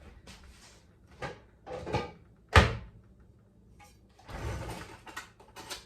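Kitchen handling noises: brief rustles and knocks of cupboards and cookware, with one sharp bang about two and a half seconds in and a longer scrape near the end.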